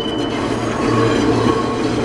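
Enoden electric train passing close by, a steady loud rolling noise of steel wheels on rail.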